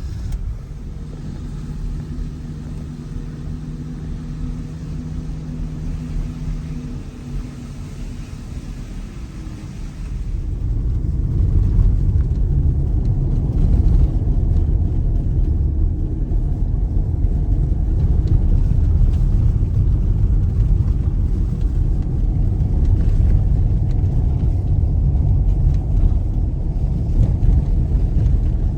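2012 VW Touareg TDI's 3.0 V6 diesel and tyres driving, heard from inside the cabin: a steady low hum for the first several seconds, then about ten seconds in a louder, heavier rumble of engine and road noise that carries on.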